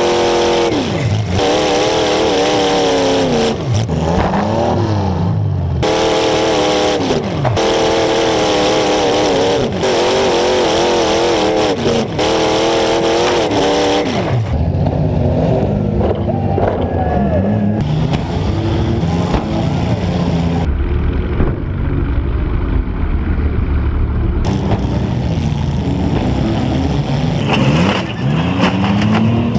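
Demolition derby car engines revving hard at full throttle, their pitch wavering high and then dropping away as the revs fall, in several bursts. In the second half this gives way to a heavier, rougher low engine rumble.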